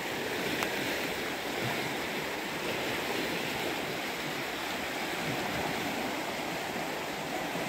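Muddy floodwater rushing and churning in a swollen stream past a collapsed earthen bank: a steady, unbroken rush of water.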